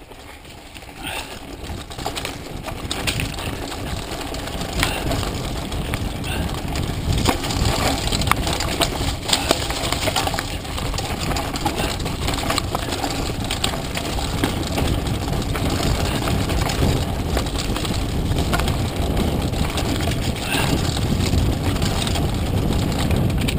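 Mountain bike descending a rough dirt trail at speed: wind rumbling on the camera's microphone with the bike rattling and knocking over roots and rocks, growing louder over the first couple of seconds as it picks up speed.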